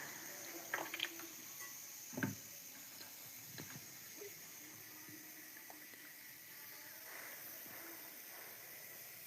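Faint eating sounds, a few short mouth clicks and smacks while chewing, over a steady background hiss.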